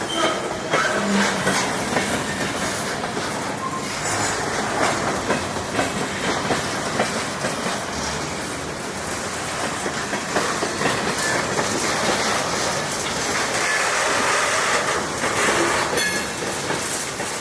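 Freight train rolling past, its wheels clacking rhythmically over the rail joints.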